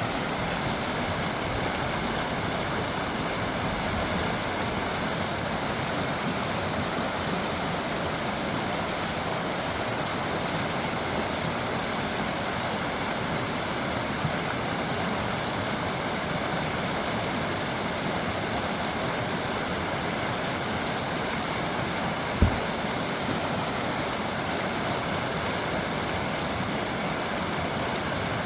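Creek water babbling steadily over stones. A single short low thump about three-quarters of the way through is the loudest moment.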